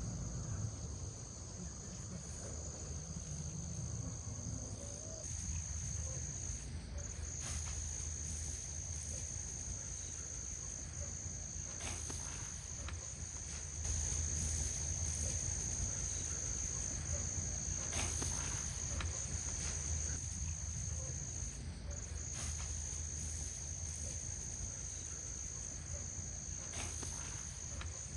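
Insects trilling steadily in one high, continuous tone, with a low rumble underneath.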